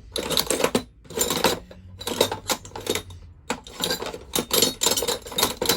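Offcuts of copper pipe clinking and clattering against each other in irregular clusters as they are handled and sorted.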